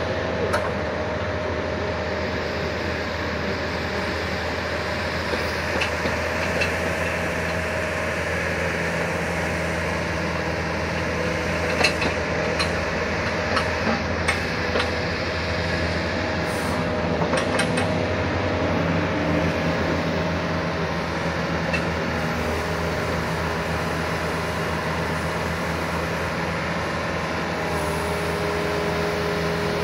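Wacker Neuson 50Z3 mini excavator's diesel engine running steadily while the boom is raised and the upper structure slews, with a few light clicks partway through.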